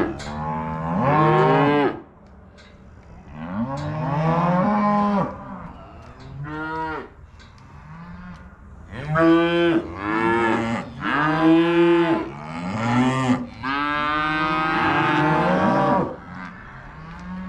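Beef cows and calves bawling over and over, several long calls overlapping one another, from cattle separated at weaning time.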